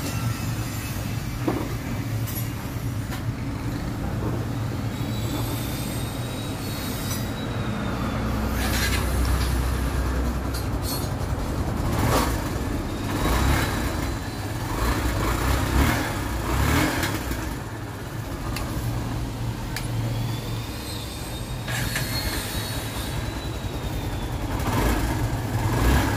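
Kawasaki Barako motorcycle's single-cylinder engine running on a test after its carburetor air/fuel mixture, which was set too lean, and its valve clearance were re-adjusted to cure hard starting. The speed rises and falls a little, with a few short knocks along the way.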